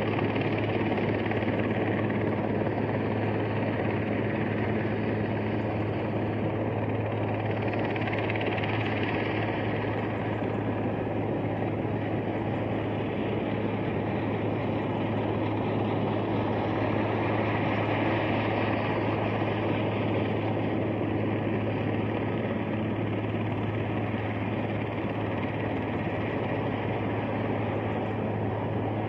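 Helicopter hovering, a steady drone of rotor and engine with a constant low hum. A higher hiss swells twice, about a third of the way in and just past the middle.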